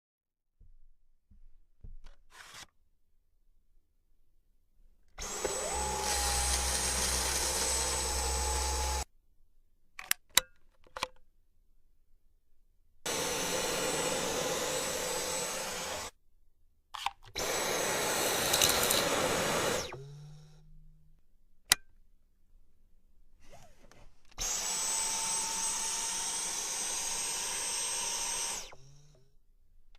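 Cordless stick vacuum switched on four times, each time running for a few seconds with a steady high motor whine before cutting off abruptly. Short clicks and knocks come in the gaps between runs.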